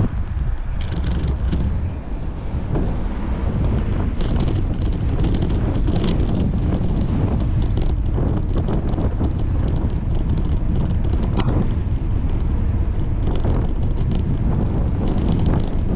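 Wind buffeting the microphone of a camera moving along a road, a steady low rumble, with several short sharp clicks or rattles scattered through it.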